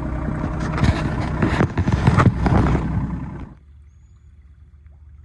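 RK25 compact tractor's engine running under load with repeated clanks and scrapes from the backhoe working. It cuts off abruptly about three and a half seconds in, leaving faint outdoor quiet.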